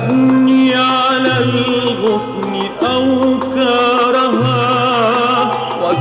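Middle Eastern-style religious song (nasheed) music: a wavering, ornamented melody over steady low held notes.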